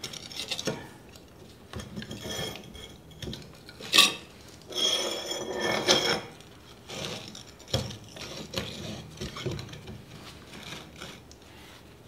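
Pieces of steel being set down and shifted on a metal workbench under a magnetic drill's base: scattered metallic clinks, scrapes and knocks, with one sharp clank about four seconds in.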